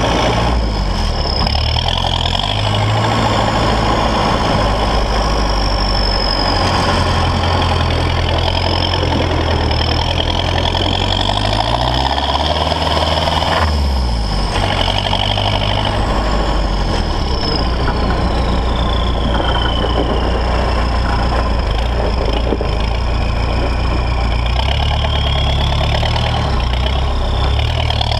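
Toyota Land Cruiser J40's 3.0 turbo-diesel engine running as the truck drives, with its revs rising and falling. The revs climb and then drop sharply about halfway through, as at a gear change, over a high whine that glides up and down. It is heard from a camera mounted on the outside of the body, close to the big mud-terrain tyres on gravel.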